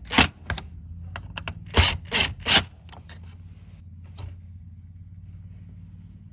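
Cordless drill-driver fastening the tower fan's blower-wheel set screw in several short bursts. Then, from about three seconds in, the squirrel-cage blower wheel is spun by hand and turns quietly and smoothly, with no squeak from its freshly greased bearing.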